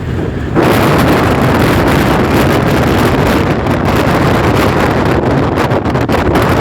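Steady, loud rush of wind buffeting the microphone over the running noise of a moving vehicle, jumping up about half a second in.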